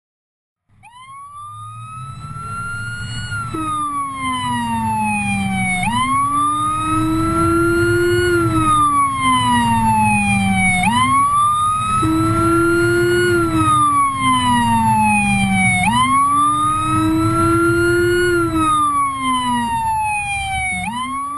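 Emergency-vehicle siren in wail mode with a Whelen Howler adding its deep low tone beneath the ordinary siren tone. Both rise and fall together, about one sweep every five seconds, fading in over the first few seconds, with a low rumble underneath.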